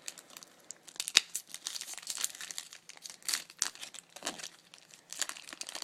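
Foil wrapper of a Topps Chrome trading card pack crinkling as it is torn open by hand, in irregular crackles with a sharp snap about a second in.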